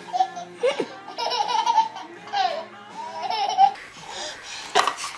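A baby laughing in a run of giggles and squeals for about three and a half seconds, which stops at a cut; a single sharp click follows near the end.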